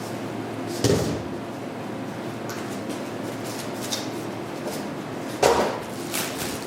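Two clunks, one about a second in and one near the end, with a few lighter clicks between, over a steady low hum: the sound of parts being handled during repair work.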